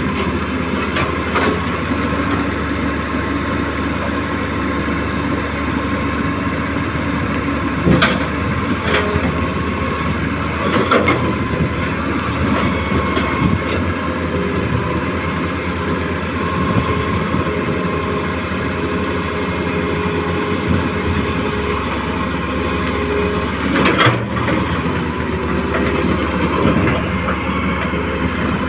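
Small electric motors and gearboxes of a Huina RC excavator running steadily with a faint whine, with a few sharp knocks about a third of the way in, near the middle and near the end.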